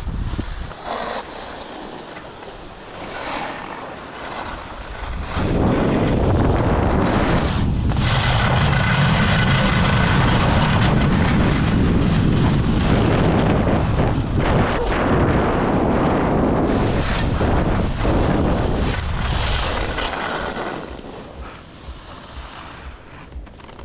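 Skis side-slipping and scraping down a race course's snow, with wind buffeting the microphone; the rush swells loud about five seconds in and dies down about twenty seconds in.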